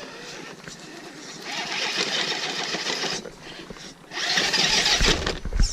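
The electric motor and gears of an Axial SCX10 II RC rock crawler whine as it drives, in two spells of about a second and a half each, the second louder with a low rumble.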